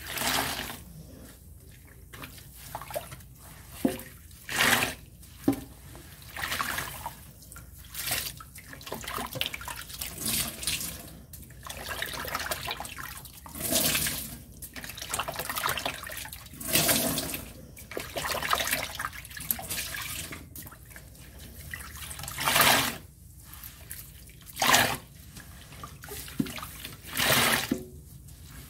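Wet bath and scrub sponges full of Ajax dish soap being squeezed and wrung by hand in water in a stainless steel sink. Each squeeze gives a wet squelch and slosh, repeating about every one to two seconds.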